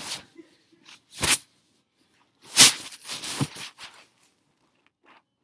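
Phone microphone rubbing against clothing and fabric as the phone is handled: a short rustle about a second in, then a longer, louder one around three seconds in.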